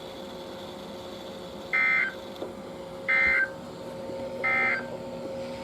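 NOAA Weather Radio SAME end-of-message data bursts: three short identical electronic buzzes about a second apart, the digital code that marks the end of the broadcast alert message. A faint steady hum lies underneath.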